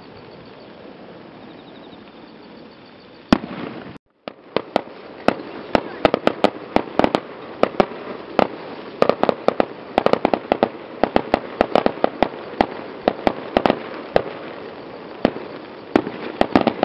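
Aerial fireworks: one sharp bang about three seconds in, then after a brief cut-out a rapid, irregular string of sharp bangs and pops, several a second, as shells burst and crackle overhead.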